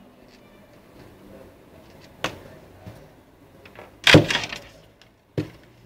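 A few sharp knocks, about two seconds in and again near the end, with a louder rattling clatter lasting about half a second around four seconds in.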